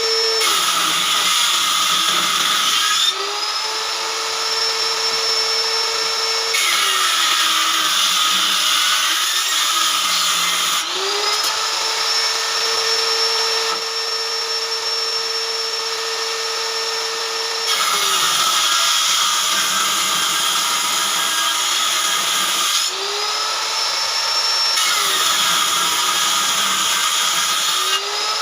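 Electric power saw ripping wood lengthwise into strips. The motor's steady whine sags under load during each of three cuts, then climbs back to free-running speed between them.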